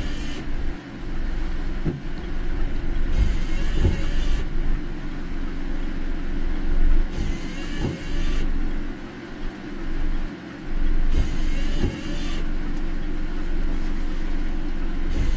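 Car cabin in heavy rain: the steady low rumble of tyres and engine on a wet road, with a hissing sweep about every four seconds, typical of windscreen wipers working against the rain. A few dull knocks sound through it.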